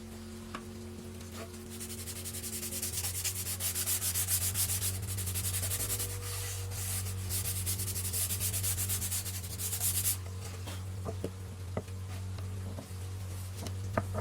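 Sandpaper rubbing on wood in quick back-and-forth strokes, about four a second, starting about two seconds in and stopping about ten seconds in. A few light knocks follow near the end, over a steady low hum.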